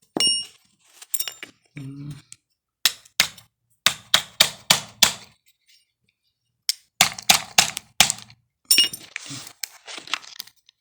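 Sharp metal knocks and clinks as a Chevrolet Lumina starter motor is worked apart on the bench. The strikes come in two quick runs of about five or six each, a few of them with a short metallic ring.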